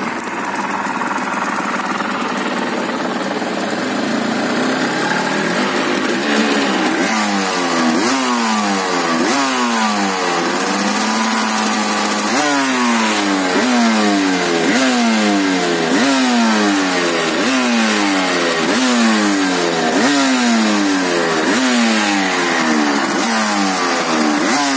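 Aprilia RS 250's two-stroke V-twin running: it idles steadily for the first several seconds, then the throttle is blipped over and over, each rev snapping up and falling back, about once a second.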